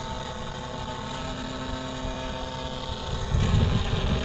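Electric motor and propeller of a Senior Telemaster RC model airplane running at a steady pitch in flight. Wind buffets the microphone in the last second.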